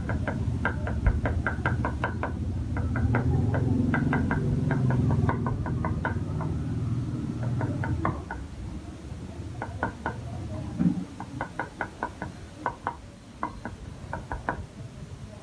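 A cleaver chopping on a round wooden chopping board, mincing garlic: quick runs of knocks, about six a second, with short pauses. About halfway through the chopping becomes sparser and softer.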